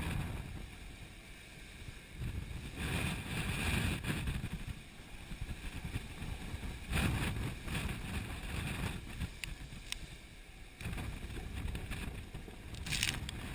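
Gale-force wind of 35 to 45 knots buffeting the microphone with a low rumble, together with seas washing and splashing along the hull of a sailing yacht on a beam reach. It comes in surges, the hiss swelling about three seconds in, again around seven seconds, and near the end.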